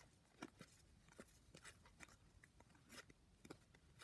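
Very faint, irregular soft ticks and swishes of 2020 Score football cards being slid one by one off the front of a hand-held stack to the back.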